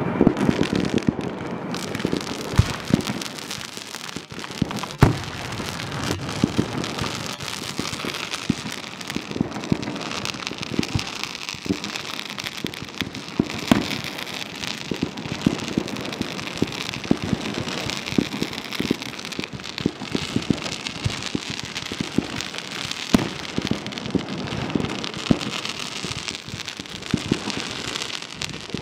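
Fireworks going off without a break: a dense run of pops and crackles from rising shells and comets, with a few louder bangs scattered through.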